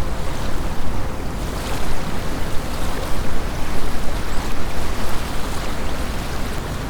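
Small lake waves lapping and splashing at the shore in a gusty wind, with wind buffeting the microphone as a low rumble that swells and eases.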